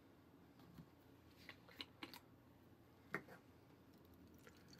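Near silence broken by a few faint clicks and taps of a cup and a plastic bottle being handled on a tabletop, the sharpest about three seconds in.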